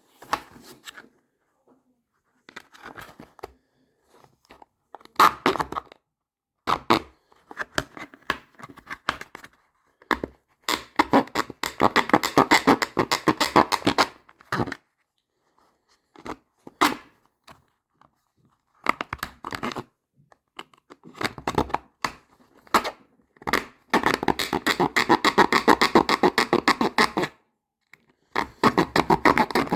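Quick back-and-forth scraping strokes of a hand file or serrated blade widening a cut-out hole in a carrying case. They come in spells, the two longest lasting about three seconds each, with short pauses between.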